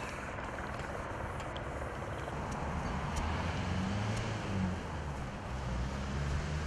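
Cloth rubbing wax over a fibreglass boat cabin top, a steady scrubbing hiss, with a low droning rumble rising under it about halfway through.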